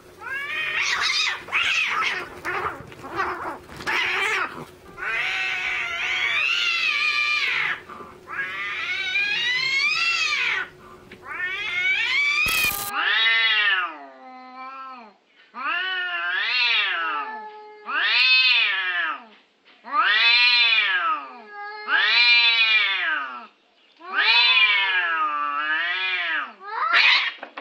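Cats fighting: dense, overlapping screeching and yowling as two cats grapple. After a cut about halfway through come long, separate yowls that rise and fall in pitch, about one every two seconds, the threat calls of two cats in a standoff.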